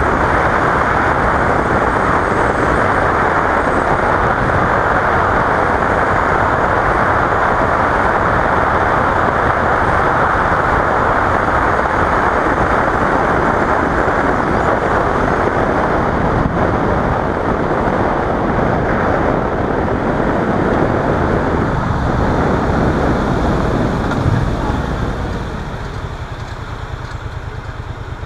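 Wind rush and engine of a 2015 Yamaha FZ-07, a 689 cc parallel twin, while riding at about 40–50 mph, picked up by a helmet-mounted camera. Near the end the sound quiets as the bike slows and stops, leaving the engine idling.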